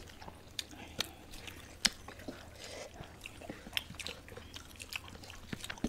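Close-up eating sounds of curry being chewed: soft, irregular wet mouth clicks and smacks.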